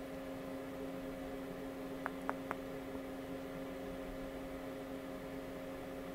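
A steady electrical hum from darkroom equipment, with three quick small clicks in a row about two seconds in.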